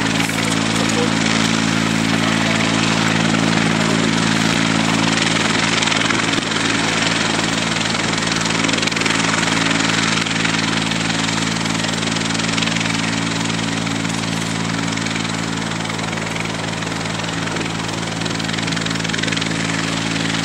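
Bell 412EPI helicopter running steadily on the ground: its twin turboshaft engines and rotors make a constant hum with a dense hiss over it, and the pitch and loudness barely change.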